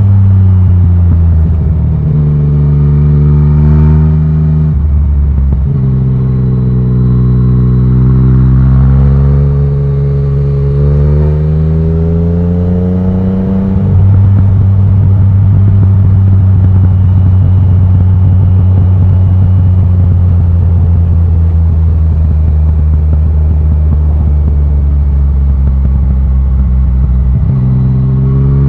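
Yamaha Tracer 900 GT's inline-three engine running loud through a titanium Akrapovic exhaust under riding. The revs dip and climb a few times with a brief break for a gear change, then hold steady at an even cruise for a long stretch, and climb again near the end.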